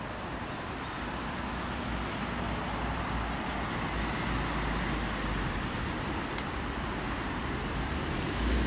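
Outdoor ambience of wind and distant road traffic: a steady hiss with wind rumbling on the microphone, growing gradually stronger, with a heavier gust near the end.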